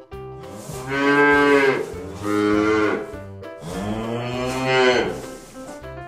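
A cow mooing three times, the middle moo shorter than the other two.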